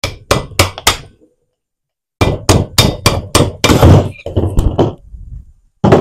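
Hammer blows on a 72-volt solar pool pump motor to drive its rotor and end cap out of the housing, the rotor held in by its magnets: four quick knocks, a short pause, then a run of about a dozen at three or four a second, and one more near the end.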